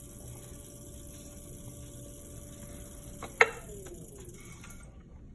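Electric pottery wheel motor running with a steady hum and whine, then a sharp click about three and a half seconds in, after which the whine falls in pitch and fades as the wheel slows to a stop.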